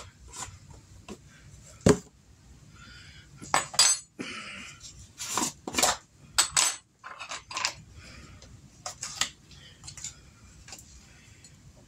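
Irregular clinks and taps of a metal tablespoon against a plastic mixing bowl and spice jars, with a screw-top jar being opened and its lid set down.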